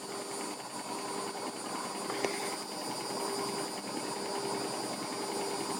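Front-loading washing machine running its wash cycle: a steady motor and drum hum, with one small click about two seconds in.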